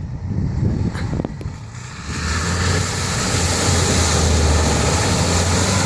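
Off-road 4x4 vehicle engine running. About two seconds in it gets louder, with a steady low drone under a rushing noise.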